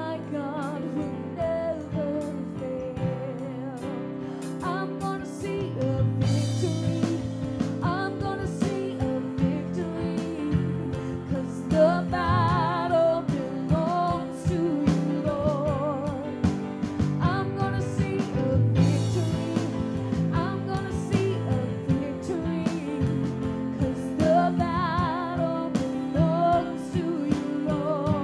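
Live worship band playing a slow praise song: a woman singing lead with vibrato over acoustic guitar, piano and drums, with a cymbal crash about 6 seconds in and again about 19 seconds in.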